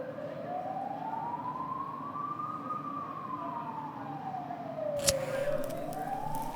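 Emergency vehicle siren in a slow wail, its pitch rising and falling over about five seconds per cycle, over a low steady rumble. A single sharp click about five seconds in.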